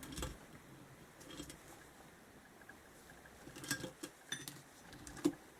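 A few faint clicks and light clinks of small metal engine parts being handled, scattered, with a louder cluster just before the end.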